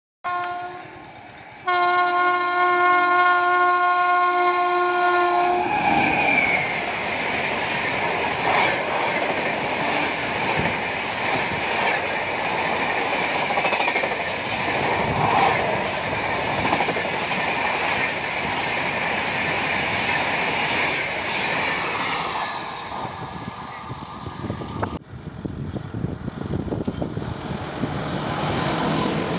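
An Indian Railways electric locomotive's horn gives a short toot, then one long steady blast of about four seconds. A long passenger express's coaches then rush past with continuous rumble and clickety-clack over the rail joints. After an abrupt cut near the end, a second train is heard approaching.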